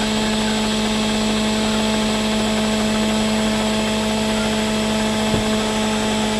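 Countertop electric blender running steadily at one speed, a constant motor hum, as it blends a homemade hair-treatment mixture.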